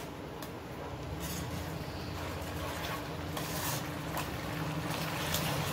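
Chopped onion, capsicum and green chilli frying in oil and sauces in a pan, sizzling steadily while a slotted spoon stirs them, with a few faint scrapes of the spoon and a steady low hum underneath.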